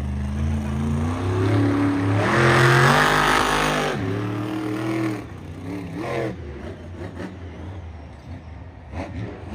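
Monster truck's supercharged V8 revving hard as it drives on arena dirt. The pitch climbs to a loud peak about three to four seconds in, then drops, with a couple of shorter revs after, and it runs quieter toward the end.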